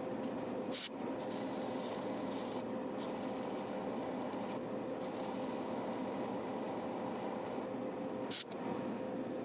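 Sandpaper rubbing on a spinning wooden segmented bowl on a wood lathe, a steady hiss over the lathe's even hum, sanding off the old finish. The sound breaks off briefly twice.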